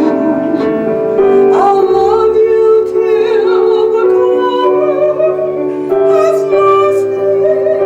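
Music: a woman singing long held notes over piano accompaniment.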